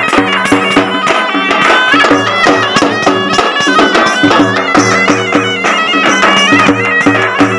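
Folk music played live: a reedy wind instrument plays a stepping melody over a steady low drone, while a stick-beaten drum and a jingle tambourine keep a quick beat.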